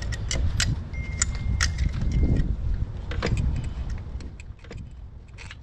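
Scattered sharp clicks and clinks of tools and engine parts being handled in a car's engine bay, over a steady low rumble. The clicking thins out and gets quieter after about four seconds.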